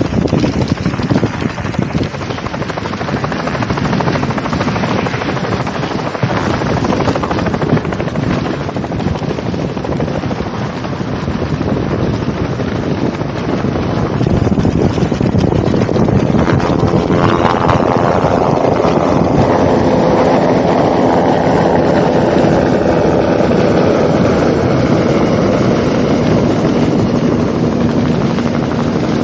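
Dog sled runners hiss over packed snow, with wind on the microphone. About halfway through, an aircraft engine comes in over it and gets louder; its pitch falls as it passes and then holds steady.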